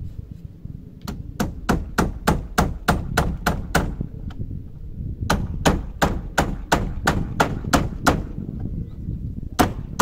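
Hammer driving nails into wooden cladding boards: two quick runs of about a dozen blows each, roughly three to four a second, with a short pause between and a couple more blows near the end.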